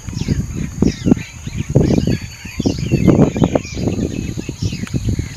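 Small birds chirping repeatedly, with short gliding calls, over a steady high insect buzz and loud, irregular low rumbling and buffeting.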